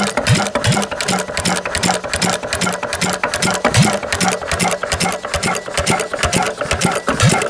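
McDonald Super Diesel single-cylinder crude-oil (hot-bulb semi-diesel) stationary engine running steadily, an even beat of about three a second with a clattering rattle over it.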